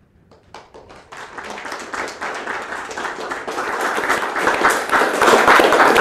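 Audience applauding: a few scattered claps at first, building into full, steadily louder applause toward the end.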